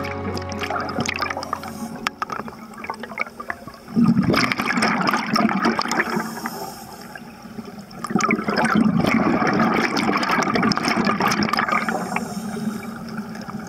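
Scuba diver's exhaled bubbles from the regulator, heard underwater as two long bubbling rushes a few seconds apart, with crackly ticking in between.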